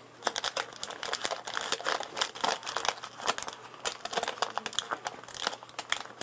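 Paper-and-plastic sterilization pouch crinkling as gloved hands pack a dental suction mirror handle into it: a dense, irregular run of crackles.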